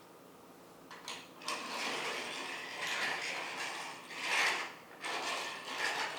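Hard plastic 3D-printed parking-lot tiles and toys being handled. There is a click about a second in, then stretches of rattly scraping, with the loudest burst a little past four seconds.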